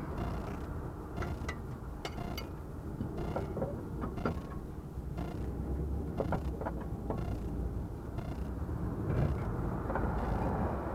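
Front suspension of a 2008 Mk4 Ford Mondeo creaking and clicking in a run of short sharp sounds over several seconds, over a low rumble of the moving car: the noise the car makes going over speed bumps.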